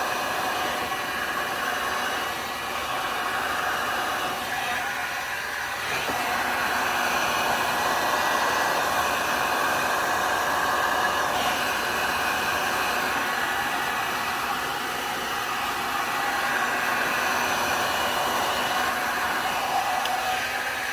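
Handheld heat gun blowing steadily, run mostly as a blower to push wet alcohol ink across a tumbler.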